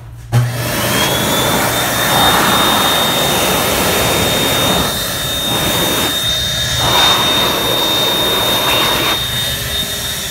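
High-speed electric hand dryer switching on with a sudden blast and blowing loudly, with a thin whine that rises quickly to a steady high pitch. At the very end it shuts off and the whine begins to fall.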